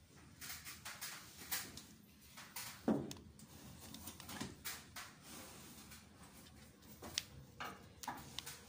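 Scattered wooden knocks, bumps and scrapes of a person climbing a wooden ladder up into a roof space and moving on the ceiling boards, with one heavier thud about three seconds in.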